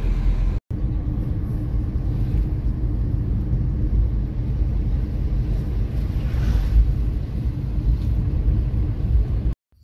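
Renault Triber driving along, a steady low rumble of engine and road noise. It drops out for an instant just after the start and cuts off near the end.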